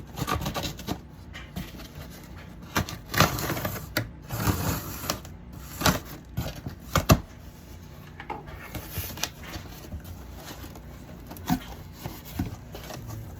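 A cardboard shipping box being slit open with a small penknife and its flaps and contents handled: irregular scraping and rustling with a few sharp knocks.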